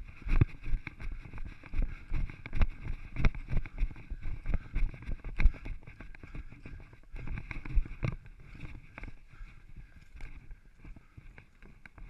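Irregular footfalls and knocks on rock and loose stones, picked up close by an action camera carried by a runner, over a faint haze of noise. The knocks come every half second or so at first and thin out after about eight seconds.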